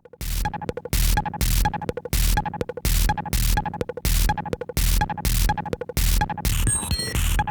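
Electronic music with a heavy kick drum and harsh, noisy distorted hits in a steady fast beat, starting abruptly after a moment of silence. It is played back through a Logitech G435 Lightspeed wireless gaming headset.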